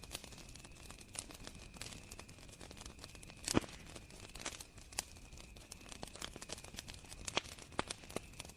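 Campfire crackling with irregular sharp pops, the loudest about three and a half seconds in, over a steady high chirring of crickets.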